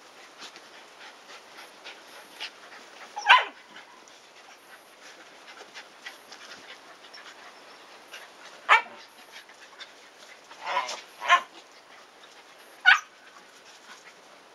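Shiba Inu dogs at rough play, giving five short, sharp barks, spread out with three close together near the end, over light scuffling.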